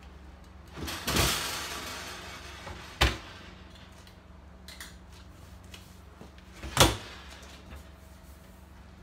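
Built-in electric oven being handled: a rushing scrape about a second in, the oven door shutting with a sharp clunk at about three seconds, and a louder metal knock near seven seconds as the oven body is pulled out of its cabinet.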